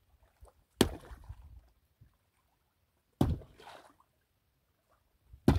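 Three sharp thuds at the side of a small wooden fishing boat, about two and a half seconds apart, each followed by a brief wash of noise.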